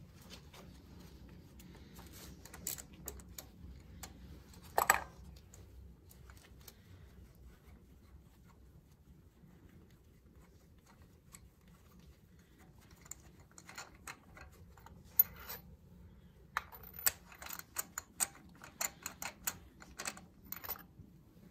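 A 3/8-inch ratchet clicking in short irregular runs with small metallic taps and rattles, as a 5/8-inch spark plug socket on an extension loosens a spark plug from the engine. There is a louder knock about five seconds in and another about fifteen seconds in, and the clicking is busiest in the second half.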